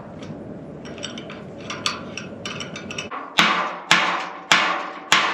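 Locking clamps being fitted to a steel pipe gate and post: rattling and clicking, then four sharp metal strikes about half a second apart, each ringing in the steel.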